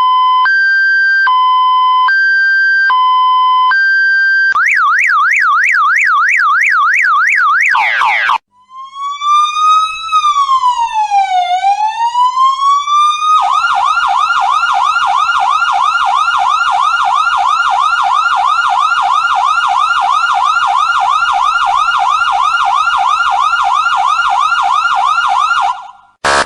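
Emergency-vehicle siren sound effects run through several patterns: a two-note hi-lo alternating about every 0.8 s, then a quick yelp ending in a falling sweep, a brief gap, a slow wail that rises, falls and rises again, and, for roughly the second half, a rapid yelp of about four sweeps a second that cuts off near the end.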